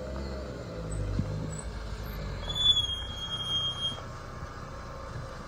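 Car rolling to a stop with its brake pads squealing: a high, steady squeal that starts about two and a half seconds in and lasts about a second and a half, over a low rumble from the car.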